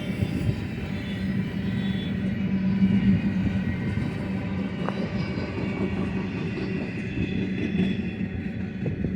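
Union Pacific manifest freight train passing: a steady rumble of the cars rolling on the rails, under a low steady hum, with one brief knock about halfway through.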